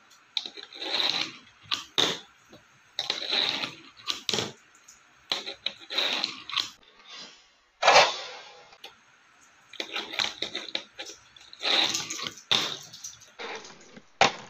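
Fingerboard wheels rolling in repeated short runs across a tabletop and a grey ledge, with sharp clicks and clacks of the board popping and landing between runs.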